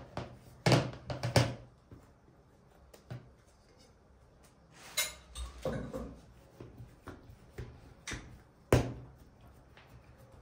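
Scattered sharp knocks and thumps as bread dough is lifted out of a glass bowl and set down on a countertop, then pressed flat by hand; three knocks come close together in the first second and a half, and the loudest comes near the end.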